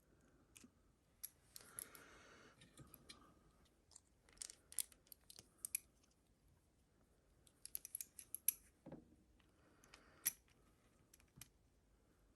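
Faint, scattered small metallic clicks and ticks of lock-picking tools and a small padlock being handled, in a few quick clusters.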